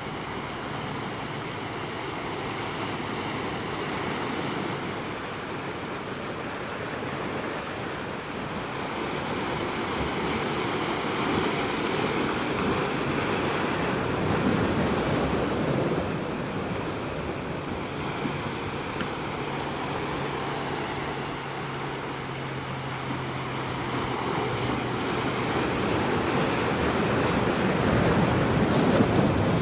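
Ocean surf breaking and washing over a rocky shoreline, swelling louder twice as waves come in.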